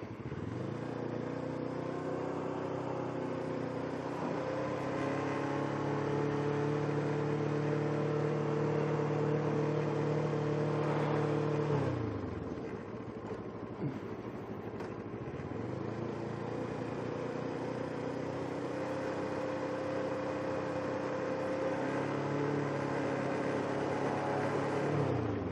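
Kawasaki Ninja 650R parallel-twin engine pulling away and accelerating, its pitch climbing steadily. About halfway the throttle closes and the pitch drops sharply, then after a few seconds it accelerates and climbs again.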